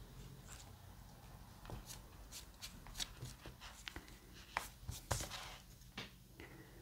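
Faint, scattered clicks and light taps of paper craft work: a die pick tool and fingers handling small die-cut paper leaves on a cardstock card, with a few sharper taps around four and a half to five seconds in.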